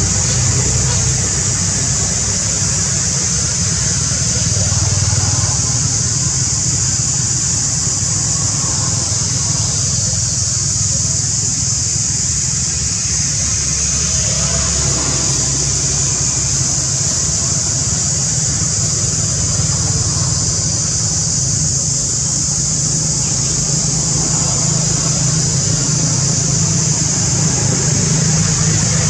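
Steady outdoor background: a constant low rumble like distant vehicle traffic under an unbroken high-pitched hiss.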